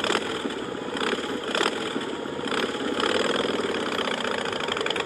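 Motorcycle engine running with a rapid, even firing rhythm, surging briefly near the start and again about a second and a half in.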